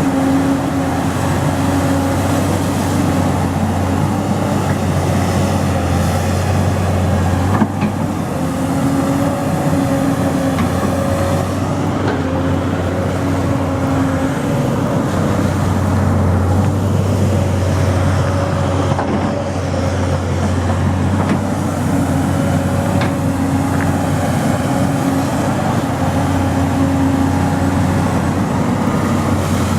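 Excavator diesel engine running steadily under working load, its note swelling and easing a little as the hydraulics work, with a single sharp knock about a quarter of the way in.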